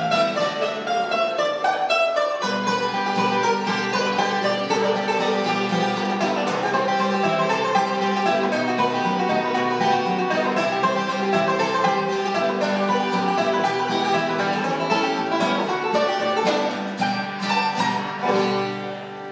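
Banjo and acoustic guitar playing a folk instrumental together, with quick, dense picking; the tune ends just before the close.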